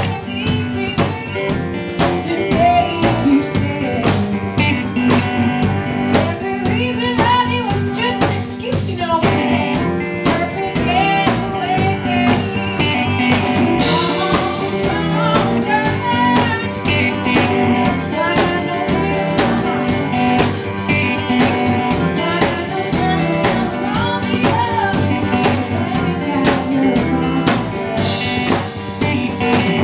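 Live blues-rock band playing: electric guitar over a steady drum-kit beat, with a woman singing, and cymbal crashes about halfway through and again near the end.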